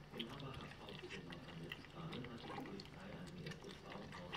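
A litter of three-week-old puppies lapping and smacking at a shared bowl of mush: a dense run of small wet clicks and slurps.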